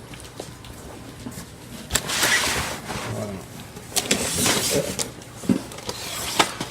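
Unpacking a cardboard box: packing paper and cardboard rustling and sliding in two longer spells, with scattered sharp clicks and knocks of parts being handled.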